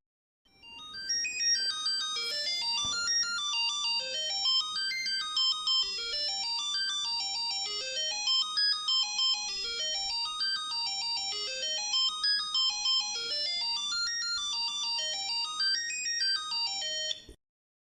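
Mobile phone ringtone: an electronic melody of quick notes in runs that climb and fall, repeating every couple of seconds. It starts about half a second in and cuts off suddenly near the end.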